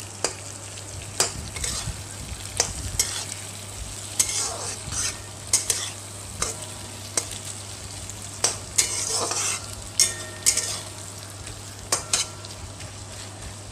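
Flat metal spatula scraping and clacking against a metal kadhai as fried onions and crushed garlic are stirred in hot oil, with sizzling. The clacks come irregularly, about once a second, and the sizzle swells twice, about 4 and 9 seconds in.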